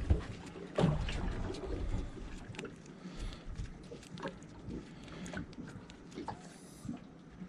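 Scattered small clicks and knocks of fishing tackle being handled aboard a small boat, over a low, uneven rumble.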